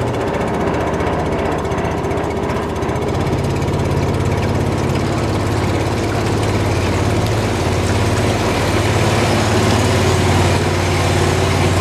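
5 hp Briggs & Stratton single-cylinder engine running steadily, driving the jon boat under way at an even speed.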